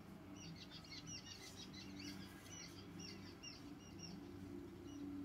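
Faint chirping of small birds: many short, high chirps in quick succession, over a faint steady low hum.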